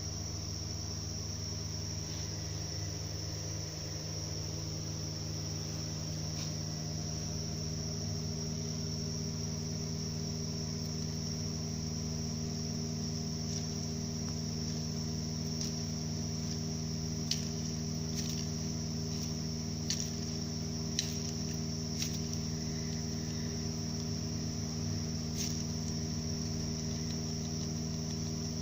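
Subaru Outback five-speed manual gearbox running with a steady high-pitched whine over an even low hum, with a few sharp ticks in the second half: the sign of a damaged rear bearing on the input (clutch) shaft.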